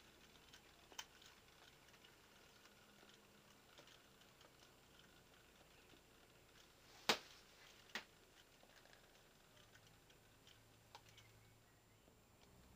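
Quiet model railway layout: faint scattered small clicks, with two sharp clicks about seven and eight seconds in and a faint low hum coming in near the end.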